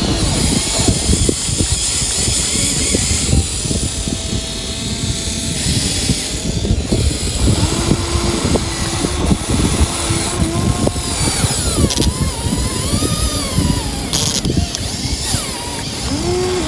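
Toy-scale Huina 1593 RC excavator's electric motors and gearing running with a constant rattling clatter.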